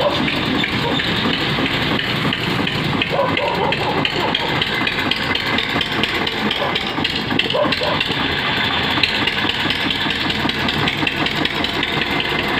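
Eicher 242 tractor's diesel engine running steadily with a fast, even beat, working under load as it drives a homemade bucket loader into a pile of sand.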